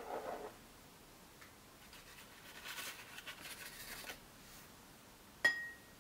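Faint paper rustling and scratchy scraping as powdered eyeshadow is tipped off a metal spoon into a rolled-paper funnel. Near the end comes one sharp, briefly ringing clink of the spoon against a ceramic bowl.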